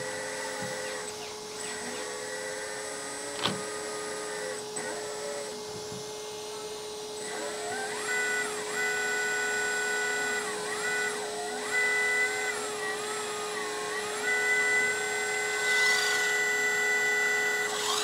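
Electric hydraulic pump of a LESU ET35 RC excavator running with a steady whine, its pitch dipping and rising again and again from about eight seconds in as the mix control varies the pump speed with the stick movements for the boom, arm and bucket. A single click near the start.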